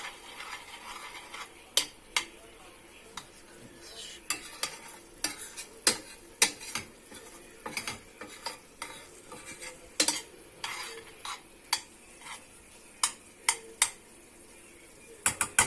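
A spoon stirring quince simmering in butter and grape molasses in a pan, with irregular knocks and scrapes against the pan over a faint sizzle. A fast, even run of clicks starts near the end.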